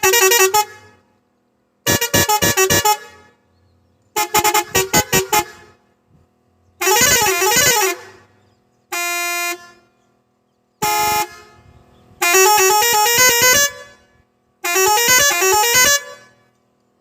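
Six-pipe musical air horn (pressure horn) on an Ape Auto three-wheeler sounding a series of short tune patterns: fast runs of staccato notes and melodies that step up and down, with one steady held chord about nine seconds in, each pattern about a second long and separated by pauses.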